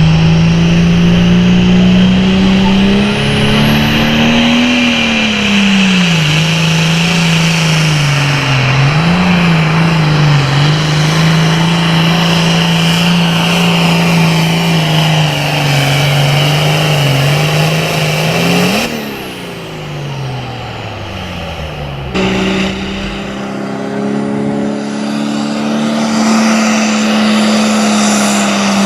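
Super Farm class pulling tractor's diesel engine running hard under load, its pitch wavering, with a steady high whine above it. About two-thirds of the way through the engine note falls away as it slows. After an abrupt cut a few seconds later, an engine is running at high revs again.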